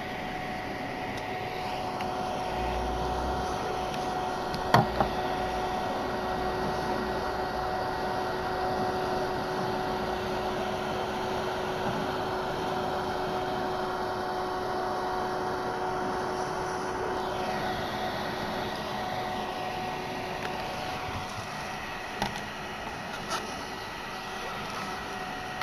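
Thermoelectric mini fridge's cooling fan whirring steadily with a faint hum, one sharp click about five seconds in and a few light clicks near the end.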